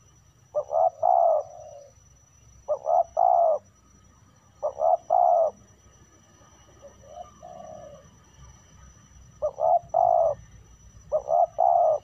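Spotted dove cooing: six short three-note phrases, each about a second long and roughly two seconds apart, the one near the middle softer than the rest.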